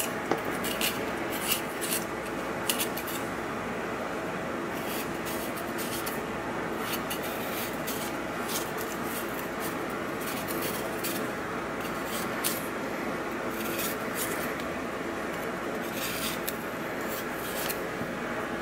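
Knife blade scraping the skin off a fresh ginger root, in many short, irregular scraping strokes over a steady background hum.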